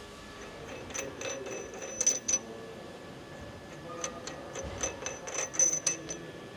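Metal hand tools clinking and tapping against metal engine parts: a run of sharp clicks with a short high ring, in two clusters, the first about a second in and the second from about four seconds in.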